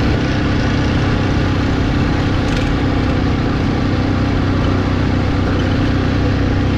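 Motorcycle engine running at a steady pace while riding, its hum held at one even pitch, under a constant rush of wind and road noise.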